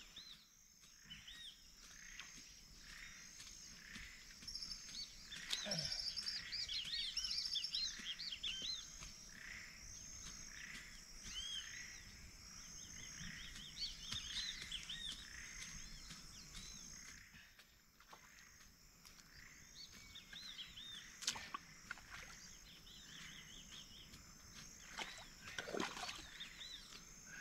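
Wildlife chorus: many short, repeated chirping animal calls over a steady high insect drone, with a few brief rustles near the end.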